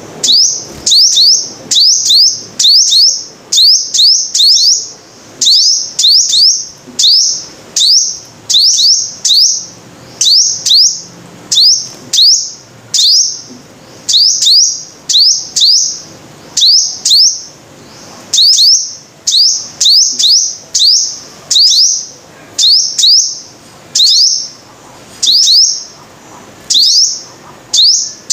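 Sunbird (the Vietnamese 'five-colour sunbird') calling over and over: short, high, sharply falling chirps in quick pairs and triplets, about one group a second, loud and evenly repeated.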